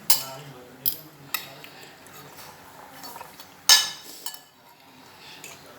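Eating utensils clinking and scraping against a plate of food, in several sharp knocks with the loudest a little past halfway.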